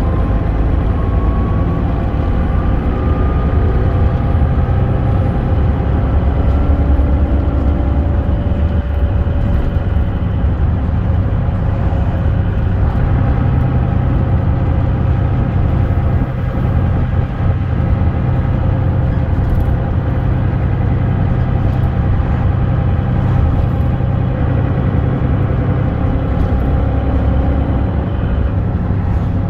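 Mercedes-Benz Citaro FL bus on the move, heard from inside the passenger saloon: its 6.4-litre OM906hLA straight-six diesel runs steadily under a constant low rumble of engine and road noise. A faint whine rises slowly in pitch over the first several seconds.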